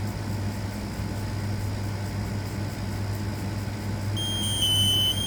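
A steady low hum, then about four seconds in, Kidde smoke alarm horns start sounding a high-pitched piezo tone as the system goes into test alarm.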